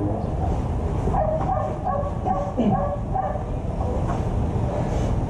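A dog barking in a string of short barks, most of them between about one and three seconds in, over a steady low rumble.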